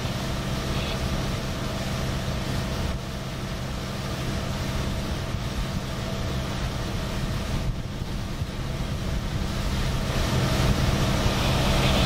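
Motorboat engine running at a steady drone, with wind and water noise; it gets louder near the end.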